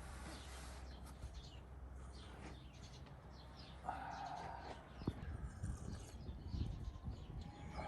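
Small birds chirping and singing, faint, over a steady low hum; about four seconds in, a brief higher pitched call lasts about a second.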